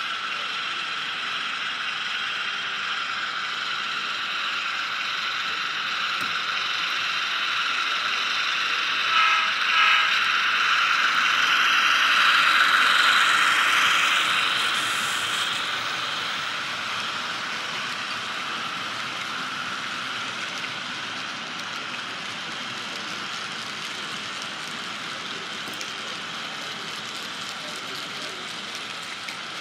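HO scale model train, two diesel locomotives pulling freight cars, running along the layout track: a steady mechanical whir of motors, gearing and wheels on the rails. It grows louder as the locomotives pass close, about 12 to 15 seconds in, then slowly fades as the freight cars roll by.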